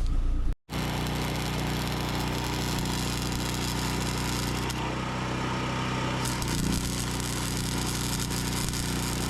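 A machine running steadily, a low hum with a hiss over it, starting after a brief cut about half a second in.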